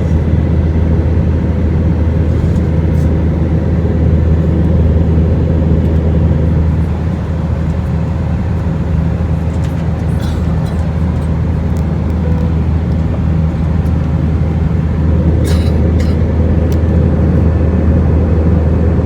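Steady cabin drone inside an Airbus A319 in flight: engine and airflow noise with a deep, even hum. A few brief clicks stand out about halfway through and again about three-quarters through.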